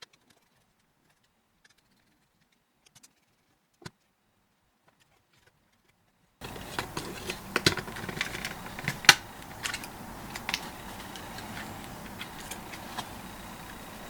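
Small clicks, taps and knocks of a plastic electronic control panel being handled and taken apart. Only a few faint clicks in the first half, then a steady background hiss with busier clicking and a sharper knock or two.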